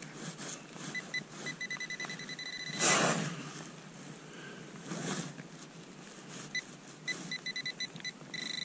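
Metal detector beeping at one steady pitch, first in quick pulses that run together into a held tone, then again near the end, as it closes on a buried target in the dug soil. Between the beeps a hand digging tool scrapes through loose soil twice, the first scrape the loudest.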